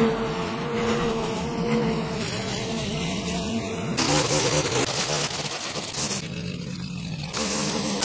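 Petrol line trimmer engine running steadily with a buzzing hum. About four seconds in its pitch rises as it revs, with a hiss of cutting. The sound changes abruptly a few times.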